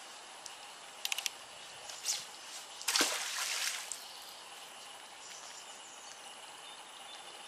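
A magnet-fishing magnet on its rope splashing in canal water: one brief splash with a sharp start about three seconds in that fades within a second, after a few quick clicks about a second in.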